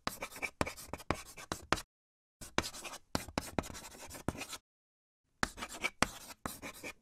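Writing sound effect: a pen scratching quickly on paper in three runs of short strokes, each broken off by a moment of silence.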